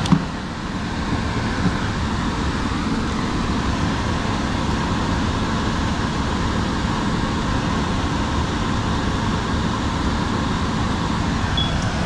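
Air handler's replacement PSC blower motor running steadily and pushing air through the cabinet, with the system on emergency heat. A sharp click comes right at the start.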